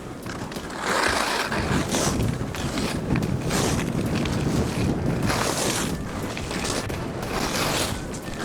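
Strong wind rushing and buffeting the microphone while skiing, with skis hissing over the snow in repeated surges as turns are made.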